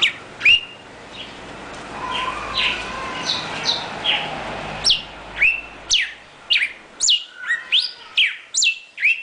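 Northern cardinal singing: a few soft notes, then from about halfway a loud run of sharp downslurred whistles that comes faster toward the end.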